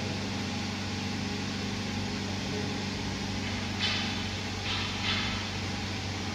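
A steady low mechanical hum, with three brief rustling noises about four to five seconds in as a plastic oil bottle is brought to a motor scooter's oil filler and tipped to pour.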